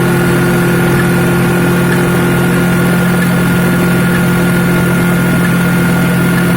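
Rice milling machine running steadily, a constant loud mechanical hum with a held tone and no change in speed.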